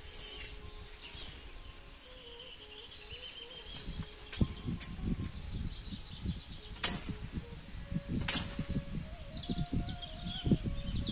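Birds chirping outdoors, then from about four seconds in, leaves and stems rustling with a few sharp chops as Lasia spinosa stalks are cut with a long knife in the undergrowth.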